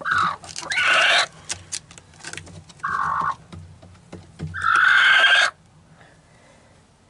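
Barred hen sitting on her nest, giving four harsh, hoarse screeches as a hand comes near her. The last and longest runs about a second before she falls quiet. It is a defensive threat call at the approaching hand. Light rustling of straw between the calls.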